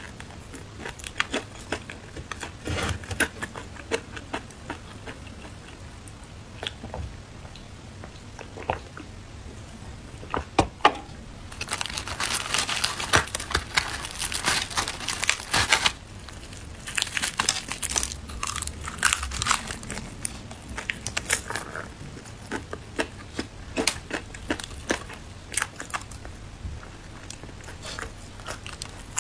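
Close-up eating sounds of crispy battered fried chicken: scattered crunches and crackles from biting and chewing. In the middle comes a dense stretch of crackling and rustling, lasting about four seconds, as the crispy chicken is torn apart by hand on the paper.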